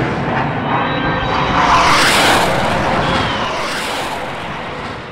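Fighter jet engine roar, swelling as the jet passes about two seconds in and then fading away.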